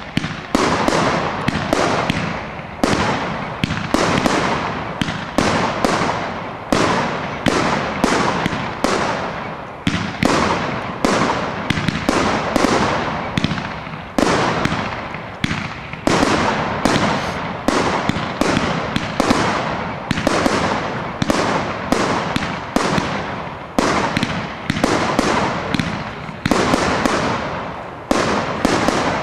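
Fireworks display: a dense, steady barrage of firework bursts, about two bangs a second, each trailing off in a short echo.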